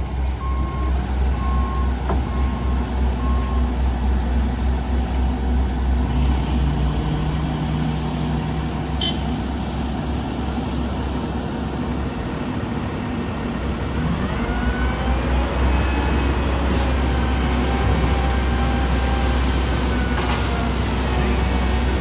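Heavy diesel paving machinery running with a steady deep engine rumble. A reversing alarm beeps for the first few seconds, and a higher whine rises and falls over the last several seconds.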